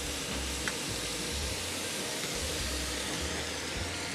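Finely chopped onion and garlic frying in oil in a pan, a steady sizzling hiss, with one light tick under a second in.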